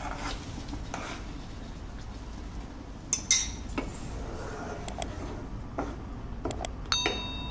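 Metal spoon scraping and clinking on a glass bowl, then a spatula scraping and knocking in a nonstick pan as a thick paste is stirred in. Scattered sharp clicks and knocks over a low steady hum, with a short ringing tone near the end.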